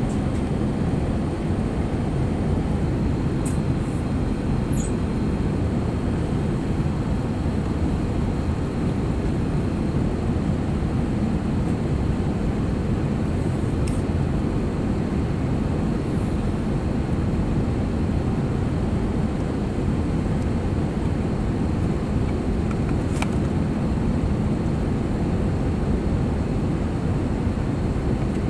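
Airliner cabin noise: the steady, even rumble of the jet engines and airflow heard from inside the passenger cabin, with a few faint clicks.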